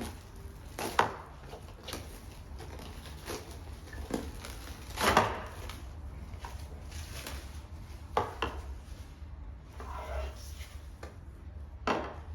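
Kitchen handling sounds: scattered knocks and taps, about four louder ones, as baked cake layers are unwrapped and set out on the work surface.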